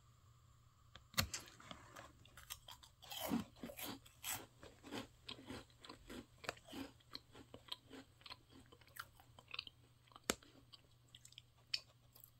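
Close-up crunching and chewing of a crisp chocolate-dusted crescent bread snack: one sharp crack about a second in, then a run of irregular crunchy chews.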